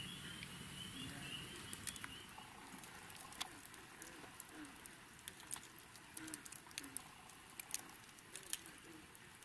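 Campfire burned down to glowing coals, crackling faintly with scattered, irregular sharp ticks and pops.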